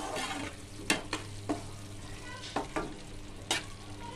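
Spatula stirring thick tomato-and-vegetable pav bhaji in a steel pan, knocking against the pan about five times, with the bhaji frying underneath. This is spice powder being mixed into the bhaji.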